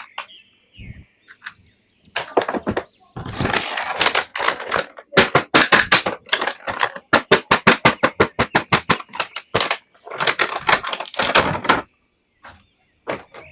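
Toy packaging being handled and opened: bursts of crinkling and rustling. In the middle comes a run of quick, regular clicks, about four or five a second.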